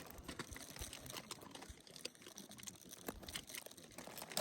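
Faint rustling and scattered small clicks of food and plastic packaging being handled while sandwiches are made.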